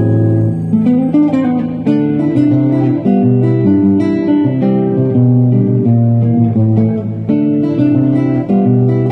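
Solo acoustic guitar played fingerstyle: a Latin melody picked over a steady line of low bass notes, with chords above.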